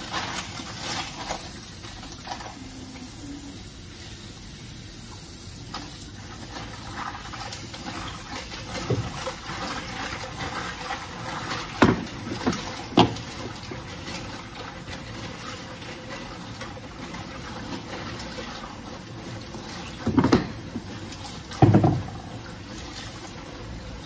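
Tap water running steadily into a kitchen sink, with four sharp clunks of jars and containers being handled and set down on the counter in the second half.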